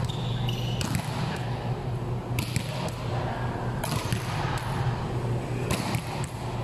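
Volleyball rally: four sharp smacks of hands and arms striking the volleyball, roughly a second and a half apart, over a steady low hum.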